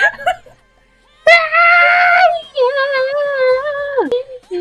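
A voice sings two long held notes with no words. The second note wavers and slides down at its end.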